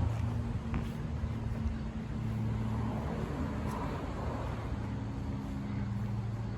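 An engine or motor running with a steady low hum.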